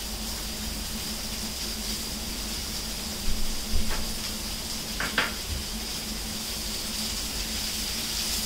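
Chopped onions sizzling in hot mustard oil in a pan, over a steady hum. A few sharp knocks of a bowl and spoon come about three to five seconds in.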